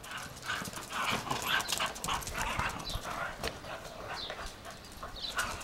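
Jack Russell terrier making short, quick vocal noises, two or three a second, as it noses a basketball along concrete, with a few dull knocks from the ball.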